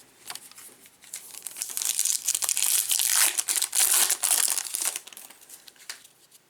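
Crinkly wrapper of a baseball card pack being torn open and crumpled, a dense crackling that builds about a second in and dies away after about four seconds.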